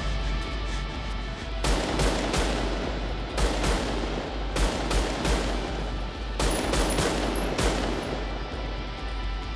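Automatic rifle gunfire in four short volleys of shots, each shot cracking and leaving a long echo. A low, steady music beat runs underneath.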